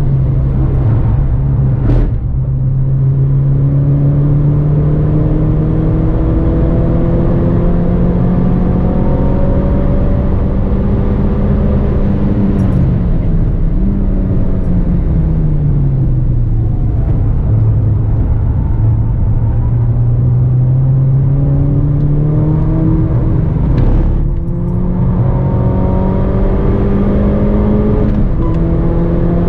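Mini Cooper engine heard from inside the cabin under hard acceleration, revs climbing steadily through the gears. There is a quick gear change about two seconds in and another near the end, and the revs fall away for a few seconds midway before pulling up again.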